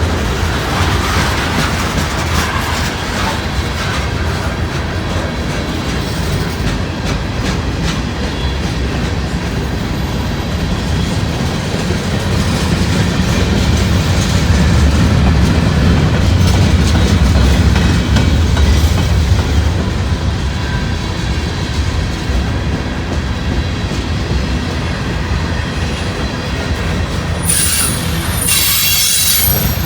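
Freight cars of a long CSX manifest train rolling past with a steady low rumble and repeated wheel clicks. A brief high-pitched screech comes near the end.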